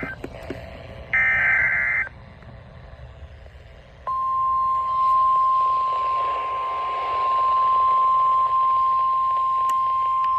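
Emergency Alert System weather radio tones: a one-second warbling data burst of the SAME header about a second in, then, about four seconds in, the steady single-pitch 1050 Hz NOAA Weather Radio warning alarm tone begins, over a light radio hiss.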